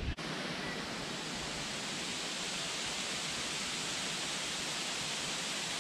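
A steady, even hiss with no pitch and no low end, starting and stopping abruptly.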